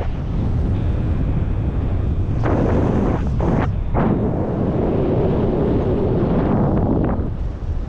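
Wind buffeting the microphone in the airflow of a paraglider in flight: a loud, low rumble that comes in gusts, with a couple of short lulls about three and a half seconds in.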